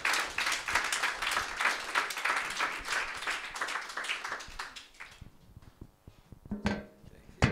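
A small audience applauding, dying away about five seconds in; a brief pitched sound follows near the end.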